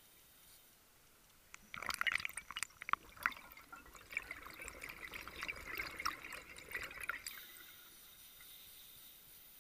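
A scuba diver's exhaled bubbles from the regulator, crackling and gurgling past the mask-mounted camera in one long breath out that starts a couple of seconds in and stops suddenly after about five seconds.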